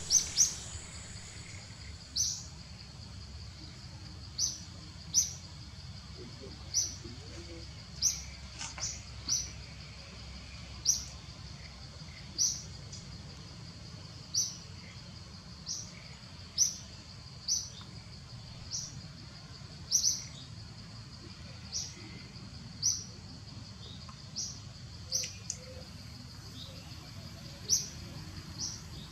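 Short, sharp, high-pitched chirps repeating irregularly about every one to two seconds, over a steady faint high hum.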